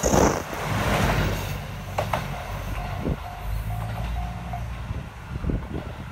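KiHa 75 series diesel railcar passing close by, with a loud rush of wheel and rail noise at the start, then its diesel engine drone fading as it pulls away down the line. A series of short beeps sounds from about two seconds in to about four and a half.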